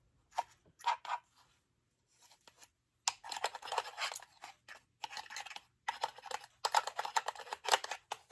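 Small clicks, then from about three seconds in dense, irregular plastic clicking and crinkling as a desktop jewelry-wire holder and its refillable spools are handled and wire is pulled out.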